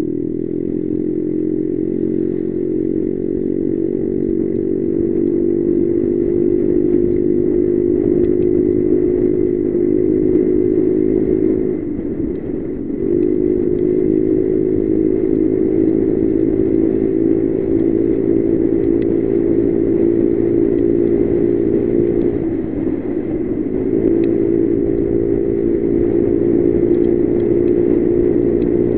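Motorcycle engine running steadily while riding along a road, heard from on the bike, with two brief dips in the engine note about twelve and twenty-three seconds in.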